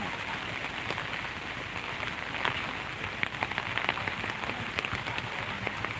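Steady rain falling on a wet road, with scattered sharper drop ticks from about halfway through.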